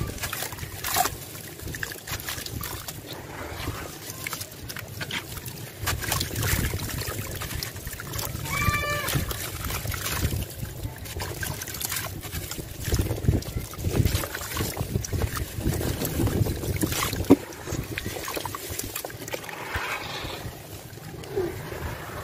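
Wet sand-and-cement chunks crumbling in bare hands, with gritty crackling and crumbs trickling and splashing into a tub of water. Near the end, hands swish and slosh in the muddy water. A brief pitched call sounds once about nine seconds in.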